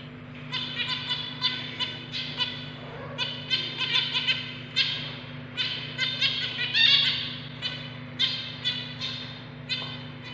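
Zebra finches calling: short, sharp calls repeated in quick clusters of two to five, with brief gaps between the clusters, over a steady low hum.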